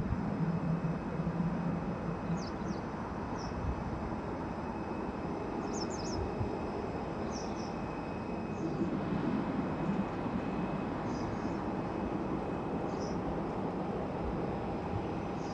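Steady distant jet-engine rumble with a faint steady whine from a taxiing Boeing 747-400 freighter at idle thrust. Short high bird chirps come every second or two.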